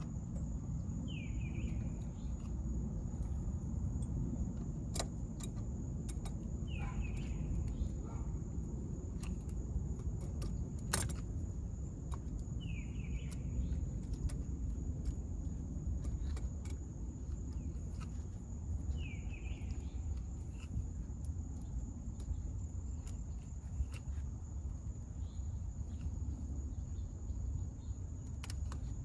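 Outdoor background: a steady low rumble, a continuous high insect drone, and a bird giving a short descending chirp about every six seconds. Scattered small clicks and taps come from handling at the truck, with one sharper click about halfway through.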